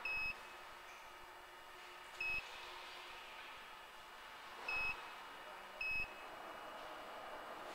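Puhui T-962A reflow oven's control-panel buzzer giving four short, high electronic beeps at irregular intervals, the confirmation beeps of keys being pressed on its panel.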